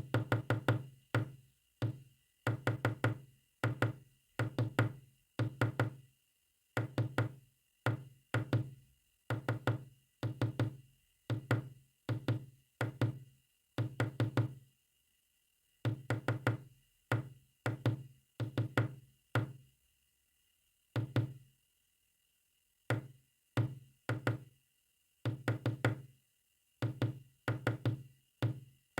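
Knocking tapped out in quick groups of a few strikes each, with short pauses between the groups and one longer pause near the two-thirds mark, like a message sent in Morse code.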